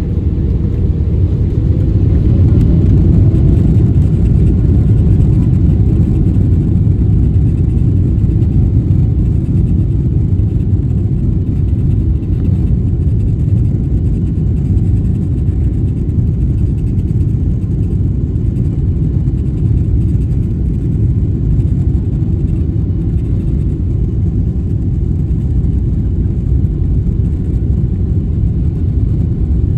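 Twin turbofan engines of a Boeing 777-300ER at takeoff thrust: a loud, steady, deep rumble, with a faint whine rising in pitch over the first few seconds.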